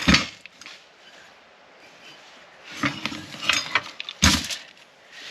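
Metal parts and tools handled during a teardown: a clank right at the start, a run of clinks and knocks about three seconds in, and one heavy clunk just after four seconds.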